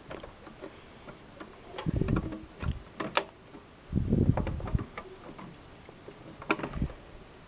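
Plastic clicks and knocks as a plastic faceplate is pushed and worked onto the front of a DVD-ROM drive. They come in a few short clusters with quiet gaps between, with one sharp click about three seconds in.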